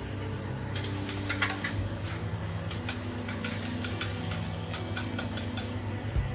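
Wooden chopsticks stirring liquid egg in a copper tamagoyaki pan, tapping and scraping the pan in a run of light, irregular clicks. Under them the egg mixture sizzles faintly, with a steady low hum.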